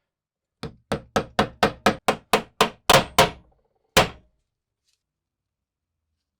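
Hammer blows on metal: about a dozen quick, sharp strikes at roughly four a second, then one final strike about a second later.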